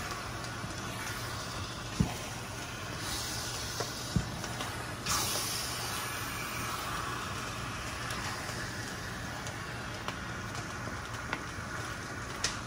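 Chopped meat sizzling in a stainless steel frying pan as it is stirred with a wooden spatula, with a steady hiss that swells about halfway through and a few sharp taps of the spatula against the pan.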